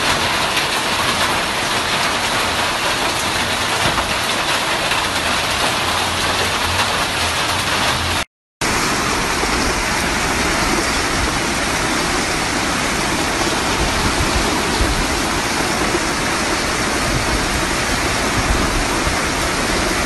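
Heavy rain pouring down in a dense, steady hiss. It cuts out briefly about eight seconds in, then goes on just as loud.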